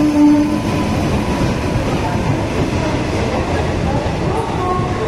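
A train horn's blast ending about half a second in, followed by the steady rumble of a train running on the tracks.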